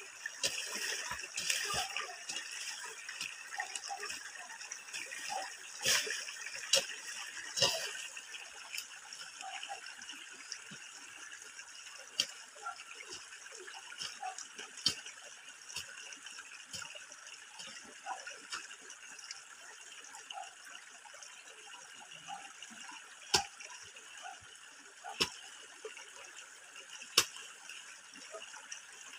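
Steady rush of running water, a little stronger in the first several seconds, with scattered sharp clicks and knocks.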